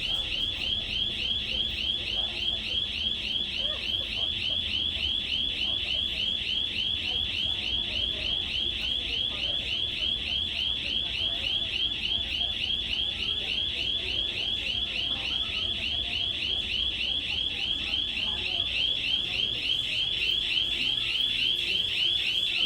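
Panic alarm sounding continuously: a loud, high warbling tone that pulses rapidly without a break.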